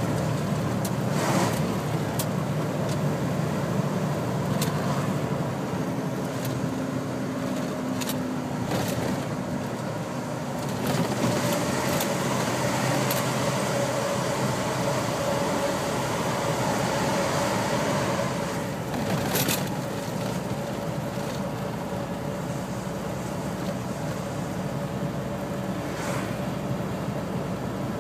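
Heavy truck under way, heard from inside the cab: a steady engine drone with tyre and road noise and a few short knocks. The noise grows louder, with a steady whine, for several seconds in the middle while the truck passes through a tunnel.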